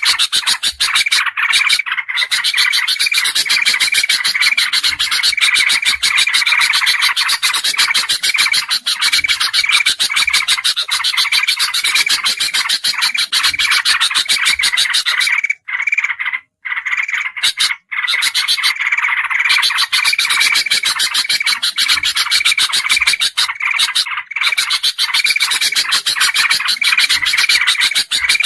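Dense, unbroken chatter of bulbul calls played as a bird-lure recording: rapid, noisy chirping with a repeating phrase, broken by a few short gaps about halfway through.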